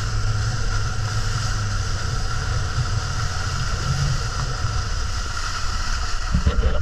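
Motorboat under way: a steady engine drone with wind and water rushing past the hull, and a few louder low thuds near the end.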